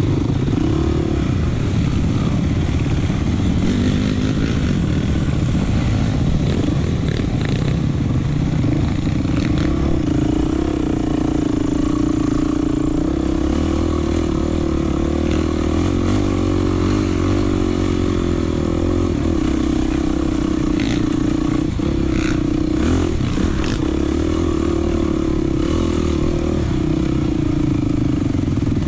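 Off-road trail motorcycle engine running at a fairly even pitch that wavers slightly. A few sharp knocks come a little past two-thirds of the way through.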